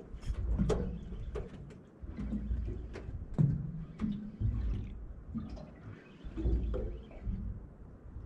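Water slapping against the hull of a small aluminium boat, with irregular light knocks and clicks and a low rumble that comes and goes.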